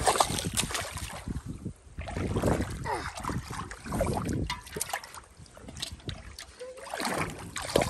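Irregular splashing and sloshing of water in a metal pot as a hand puts a caught fish into it, with short knocks and wet slaps.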